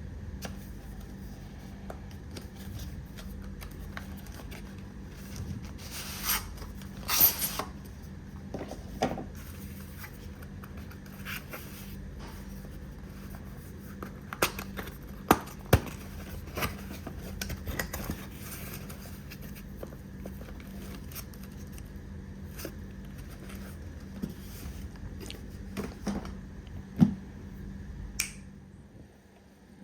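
Packaging and contents being handled: scattered scrapes and sharp clicks, with two louder rustling scrapes about six and seven seconds in and more clicks around fifteen seconds, over a steady low hum that drops away near the end.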